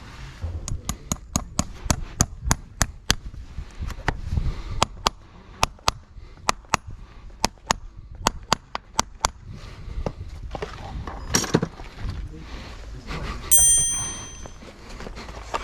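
A farrier's hammer striking steel in a quick run of sharp, ringing blows, about three a second, which stop about nine seconds in. A single metallic ring lasting about a second comes near the end.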